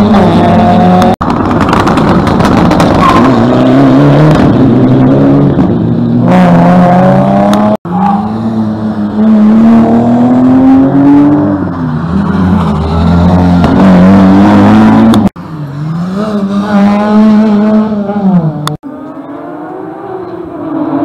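Rally car engines revving and accelerating past, loud and close, the pitch rising and falling again and again across several short clips cut one after another.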